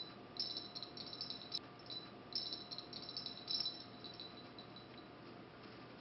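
Faint, light metallic rattling and clicking from a sewing machine's steel boat shuttle and its bobbin being handled as thread is drawn through the shuttle. The sounds come in two short bursts and die away in the second half.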